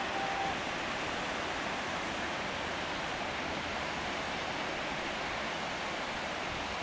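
Steady rushing roar of the Marmore Falls, water pouring down the cliff as the falls are opened and the flow released.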